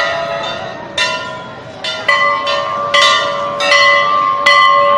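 Hanging brass temple bells being struck again and again, about six strikes in quick succession, each ringing on into the next.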